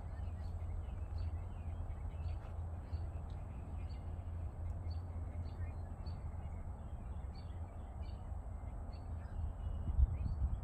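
Birds chirping and calling again and again over a steady low rumble of wind on the microphone, with the wind buffeting harder near the end.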